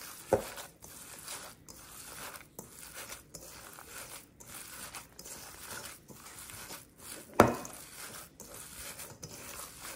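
Hands squishing and kneading a raw ground pork and beef mixture in a stainless steel bowl, a wet, squelching stroke about once a second. Two sharp knocks stand out, a small one near the start and a louder one about seven seconds in.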